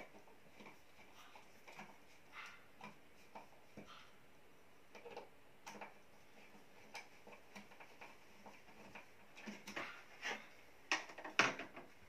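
Faint scattered clicks and rustles of hands working the wiring at a smoke detector's ceiling mounting plate, with a cluster of louder knocks and rustles near the end.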